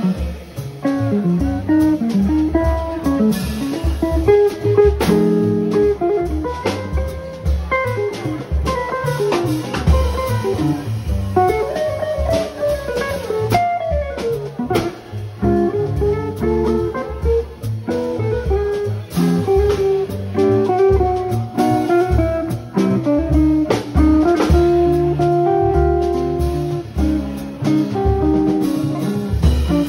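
Live small-group jazz: a hollow-body archtop guitar playing melodic lines over a plucked double bass and a drum kit with cymbals.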